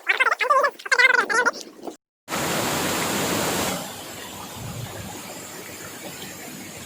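Brief voices, then after a cut the steady rushing noise of a waterfall. The rush is loud for about a second and a half, then drops to a lower, even level.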